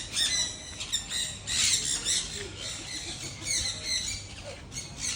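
Sun conure screeching: a run of shrill, harsh screeches one after another.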